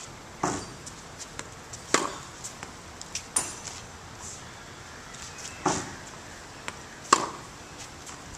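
Tennis balls struck by rackets: four sharp pops in two pairs, each pair about a second and a half apart, with lighter clicks of ball bounces between them.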